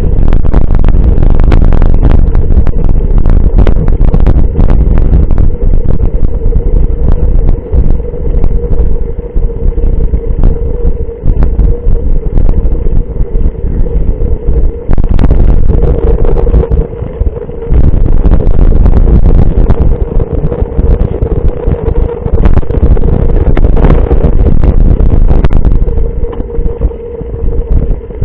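Heavy wind rumble on a moving action camera's microphone during a mountain-bike ride at speed, with a steady hum and scattered clicks and rattles from the bike.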